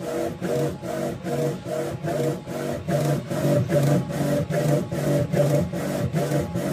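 Background music: a strummed guitar keeping a quick, even rhythm of about four strokes a second over shifting chords.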